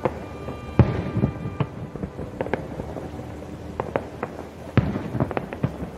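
Fireworks shells bursting overhead: a string of sharp bangs, the loudest about a second in and again near the five-second mark, with smaller pops and crackles between them.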